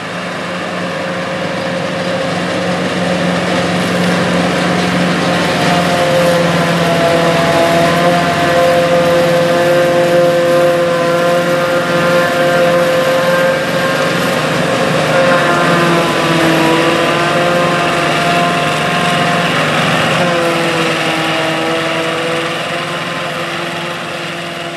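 A Sperry-New Holland 1880 Crop Cruiser forage harvester's Caterpillar V8 diesel running under load while chopping standing corn and blowing silage into a trailer, mixed with an International Harvester tractor's diesel engine pulling alongside. The sound is steady and loud, swelling over the first few seconds, with the engine pitch dipping briefly a couple of times in the second half.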